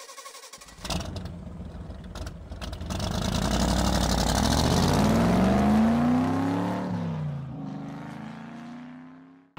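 A vehicle engine picks up speed, its pitch rising for a few seconds, then drops away and fades out near the end.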